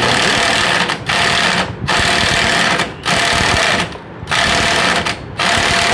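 Electric impact wrench hammering on the 19 mm magneto rotor nut, tightening it. It runs in about six bursts of roughly a second each, with brief breaks between them.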